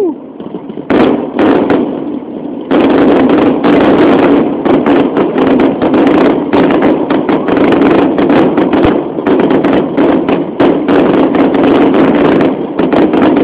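Fireworks going off: a few separate loud bangs, then from about three seconds in a dense, unbroken barrage of overlapping bursts and crackles.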